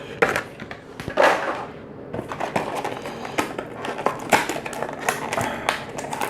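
Cardboard boxes and plastic wrapping being handled and opened by hand: irregular crinkling, rustling and light taps and clicks.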